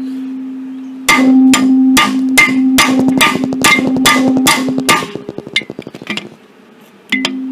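Hammer blows on a steel bar driven against a seized piston in a Ford 400 V8 block, about ten quick strikes a couple of times a second, each leaving a metallic ringing tone, dying away and followed by one more ringing strike near the end. The piston is rust-seized in its bore and does not budge under these blows.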